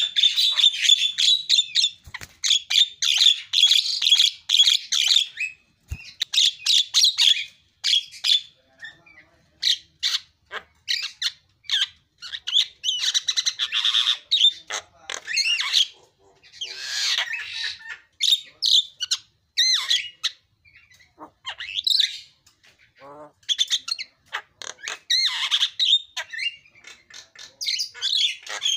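Javan myna singing at close range: fast runs of varied chattering and whistled notes, in phrases broken by short pauses.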